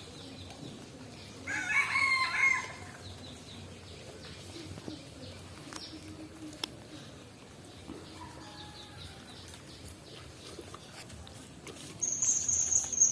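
A rooster crows once, about a second and a half in, a loud call lasting about a second. A high, shrill steady tone starts near the end.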